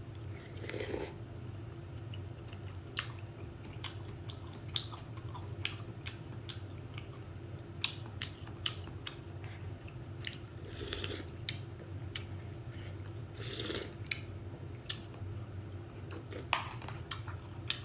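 A person eating: chewing and biting food, with many short sharp clicks and a few louder crunchy bursts, over a steady low hum.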